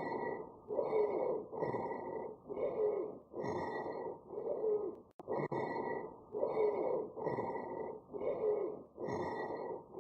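Sonorous rhonchi: low-pitched, snoring breath sounds repeating in a steady rhythm, about one every three-quarters of a second. It is a sign of airways narrowed by bronchospasm or secretions.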